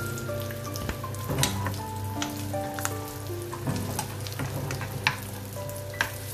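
Cashews, almonds and raisins sizzling as they fry in a shallow pan, stirred with a steel spoon that clicks and scrapes against the pan several times.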